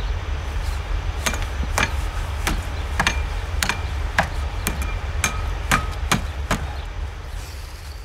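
Repeated hammer strikes on metal at a trailer hitch, about two a second, several with a short metallic ring, over a steady low rumble.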